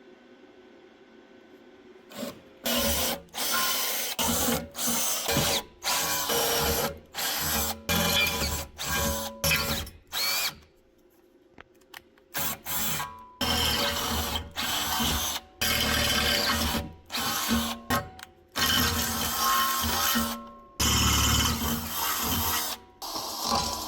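A power drill running in many short bursts, starting and stopping abruptly, as holes are drilled for the engine mounting plate. There is a quiet pause about halfway through.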